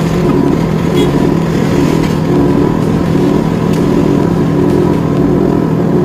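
Tyre-changing machine's motor running steadily while a motorcycle tyre is worked over the rim on its turntable: a loud, even mechanical drone with a faint high tone over it.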